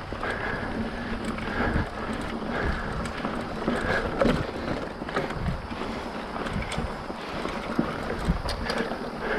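Specialized Rockhopper mountain bike riding over a dirt trail: steady rolling and rattling noise with scattered knocks and clicks from bumps, and wind on the microphone.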